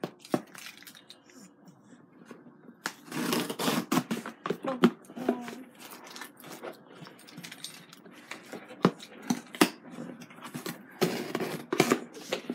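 Cardboard shipping boxes being handled while their packing tape is scraped with a key and torn open: a run of sharp scrapes, clicks and rips, with longer rasping tears about three seconds in and again near the end.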